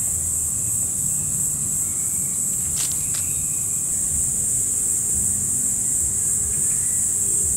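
Steady, high-pitched insect chorus of a summer woodland, with a low rumble beneath. Two short sharp clicks come about three seconds in.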